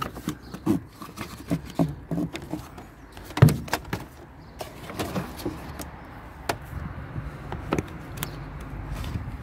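Plastic scuttle trim and rubber seal at the base of a car windscreen being pulled and handled by hand: scattered clicks and knocks, the loudest about three and a half seconds in.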